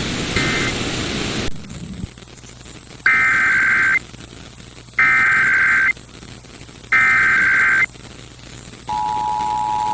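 Hissing radio static that cuts off about a second and a half in. Then three bursts of an Emergency Alert System SAME header, about a second each and a second apart, a harsh buzzing data tone. Near the end the steady two-tone EAS attention signal begins.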